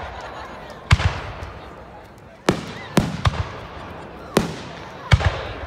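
Aerial firework shells bursting in a display. About seven sharp bangs come at uneven intervals, some close together in pairs, and each trails off briefly.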